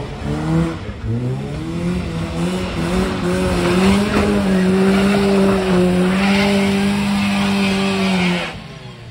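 A sports car's engine revving up and held at high, steady revs as it climbs a steep muddy trials section under full throttle, its rear wheels spinning and slithering in the mud. The engine note drops away sharply about half a second before the end.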